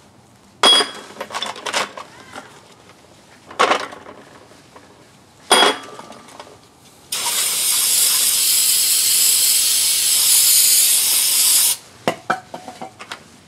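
Greasy metal CV joint parts clattering and clinking in a metal drain pan three times, then a loud steady spray hiss lasting about four and a half seconds that cuts off sharply, the parts being sprayed clean of grease, followed by a few light clicks.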